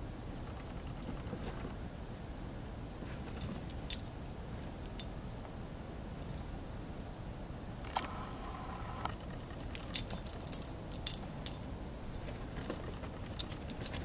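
Metal tags on a basset hound puppy's collar jingling in short clusters as she moves about, once around four seconds in and again from about ten seconds in.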